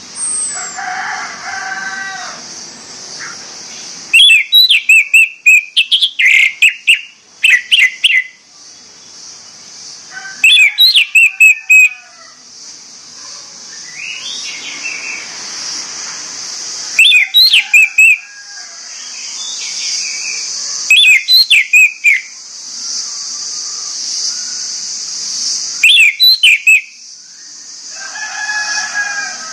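Orange-headed thrush singing in loud phrases of sharp, rapid whistled notes that fall in pitch, about five phrases of one to two seconds each, with pauses between.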